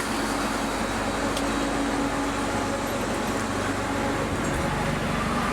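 Steady hum and hiss of the International Space Station's cabin ventilation fans and equipment, with a few faint steady tones in it.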